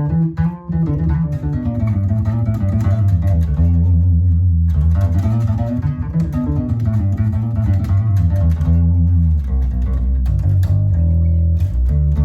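Electric bass guitar played through an amp: a continuous line of plucked notes that dwell mostly in the deep low end, with a brief drop in loudness about half a second in.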